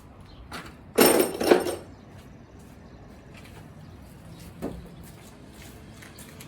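A loud metallic scrape and clatter in two quick surges about a second in, then a faint knock past the middle: metal parts and tools being handled while a stuck cylinder head is worked loose from an engine block.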